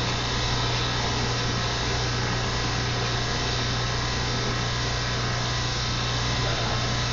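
Oxy-fuel brazing torch flame hissing steadily on copper tubing, over a steady low hum.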